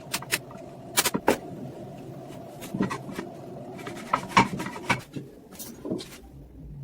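Irregular sharp clicks and knocks of hard parts being handled and set down, with some rubbing, over a steady low hum.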